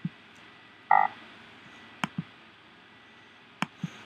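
Computer mouse button clicked three times, each click a sharp press followed by a softer release. About a second in comes one short, croaking electronic alert tone from the computer.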